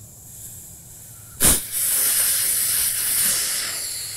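Air escaping from a John Deere X320 riding mower's front tire through the valve stem as its core is unscrewed: a faint hiss, then about a second and a half in a sudden loud burst and a strong rush of air that fades towards the end as the tire deflates.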